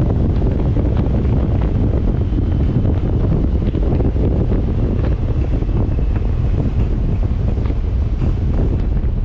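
Steady wind rushing over the microphone of a Honda Gold Wing touring motorcycle riding at road speed on a wet road, a dense low rumble that drowns out the engine.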